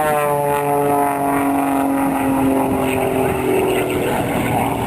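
Aerobatic plane's piston engine and propeller during a tumbling manoeuvre, the engine note sliding steadily down in pitch over the first three seconds and turning rougher near the end.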